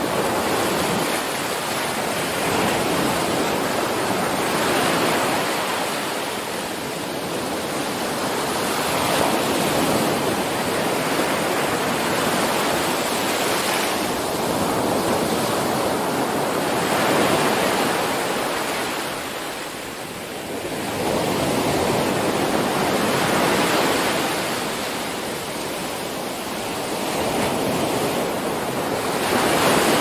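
Sea waves breaking on the shore: a continuous rush of surf that swells and eases every few seconds.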